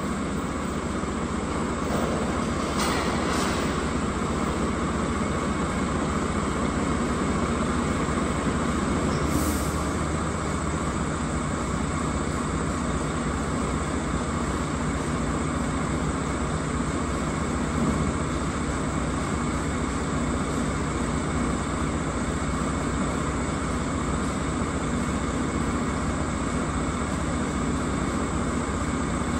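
Diesel truck engine running steadily at idle, powering a container sideloader rig.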